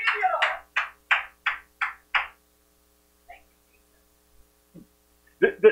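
A short run of about six evenly spaced, voice-like pulses, roughly three a second, over the first two seconds, then quiet.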